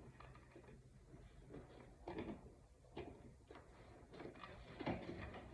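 Faint, scattered scrapes and clicks of a spline roller tool pressing the screen's spline cord down into the screen door frame's channel.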